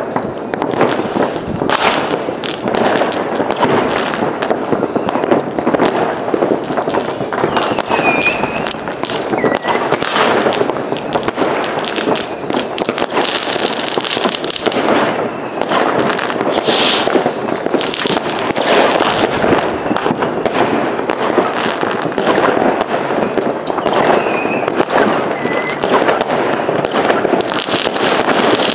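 Fireworks and firecrackers going off all over a town at once: a dense, unbroken barrage of overlapping bangs and crackles, near and far. Two brief whistling fireworks stand out, one about a third of the way in and another later on.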